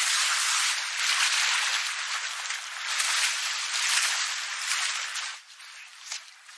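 Loud, steady rush of water from the film's soundtrack, dropping off sharply about five seconds in to a faint trickle.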